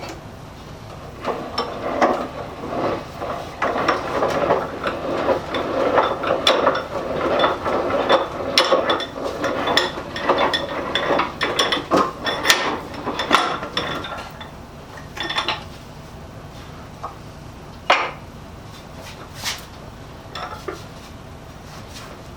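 A wooden leg vise being taken apart by hand: a busy run of knocks and clatter of wood and metal parts, some with a short metallic ring, thinning to a few separate knocks in the second half.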